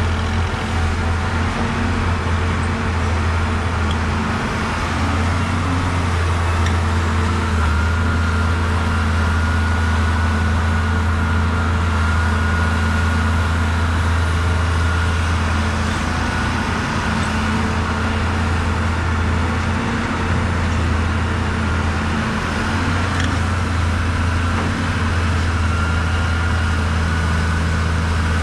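Caterpillar 320 excavator's diesel engine running steadily under load while it digs and loads a dump truck, with a steady high whine over the low drone.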